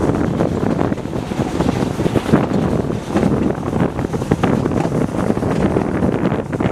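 Wind buffeting the microphone held out of the window of a moving narrow-gauge steam train, over the steady rumble of the carriages running along the track.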